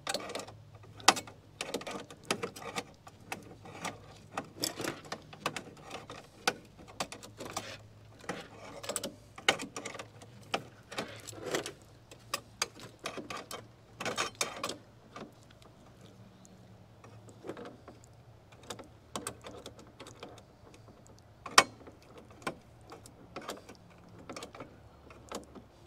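Pliers wrench clicking and scraping on the threaded fitting of a Hayward pool heater's new temperature sensor as it is turned tight in short strokes: a run of irregular metallic clicks, busy at first and sparser later, with one sharper click about two-thirds through.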